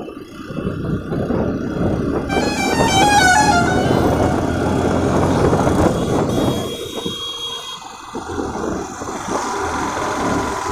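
Motorcycle engines running amid street traffic, with a vehicle horn sounding for about a second and a half starting about two seconds in.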